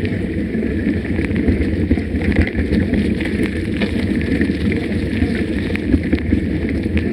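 A mountain bike riding a dirt trail: steady wind rumble on the microphone, with tyre noise and scattered sharp clicks and rattles from the bike going over bumps.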